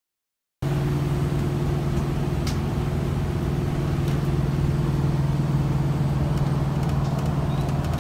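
Motorhome engine running, heard inside the coach: a steady low drone with a few light clicks and rattles. It starts about half a second in, after a moment of silence.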